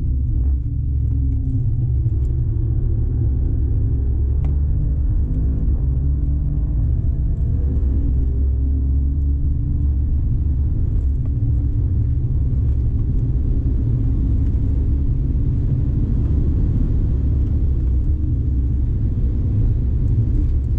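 Cabin noise of an Alfa Romeo Giulia Quadrifoglio driven hard: a loud, steady low rumble of its 2.9-litre twin-turbo V6 and tyre and road noise, with the engine note climbing in pitch several times as it accelerates.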